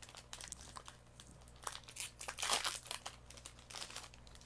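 Foil trading-card booster pack crinkling as it is torn open: a run of short crackles, loudest about two and a half seconds in.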